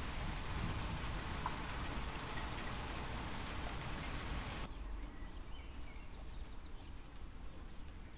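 Steady hiss of rain over a low wind rumble. About halfway through the hiss cuts off abruptly, leaving the low rumble and a few faint bird chirps.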